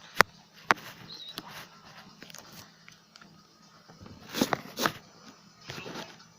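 Handling noises from craft work with tape and cut-out pieces: two sharp clicks near the start, then crackling rustles about four and a half and six seconds in.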